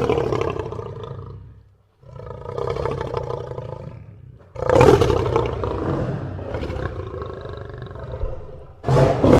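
Lion growling: three long, loud growls, the third the longest, then a short sharp one at the end.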